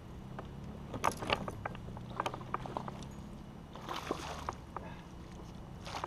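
Smallmouth bass being played beside a fishing kayak on a spinning rod: scattered light clicks and knocks of tackle and hull, then a short splash at the surface about four seconds in and another at the very end.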